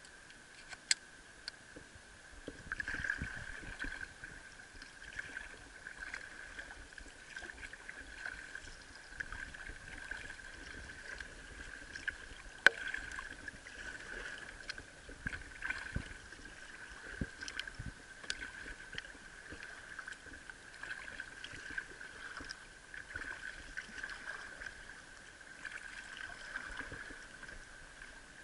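Sit-on-top kayak being paddled: water lapping and splashing against the plastic hull, with irregular paddle splashes and a few sharp knocks, the loudest about halfway through.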